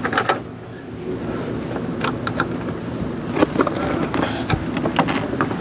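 A test light's alligator ground clip and lead being handled and clipped onto metal under a car's dash: a few separate light clicks and rattles over steady low background noise.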